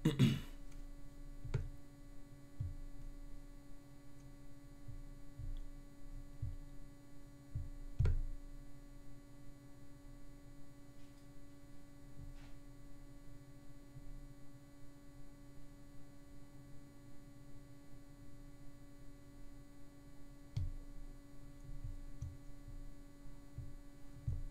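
A few soft scattered clicks and low thumps of computer mouse clicks over a steady low electrical hum.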